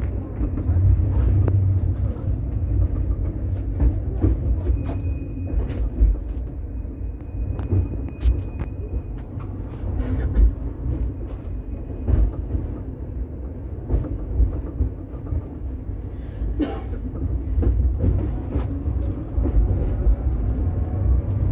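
KTM-23 tram riding along the rails, heard from inside the car by the doors: a steady low rumble with frequent knocks and clacks from the wheels and track. A faint high tone comes and goes between about five and twelve seconds in.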